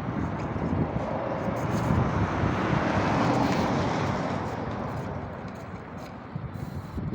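A road vehicle passing by: a rushing noise that swells to its loudest about three seconds in, then fades away.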